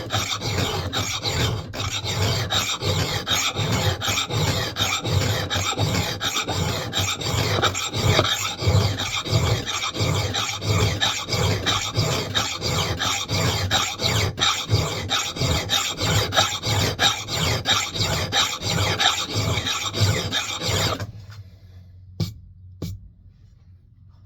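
Hand file rasping across the steel bit of a Mann Edge Tool Company axe in steady back-and-forth strokes, about two a second, shaping the edge bevel after a burr has been raised. The filing stops about 21 seconds in, leaving a few faint clicks.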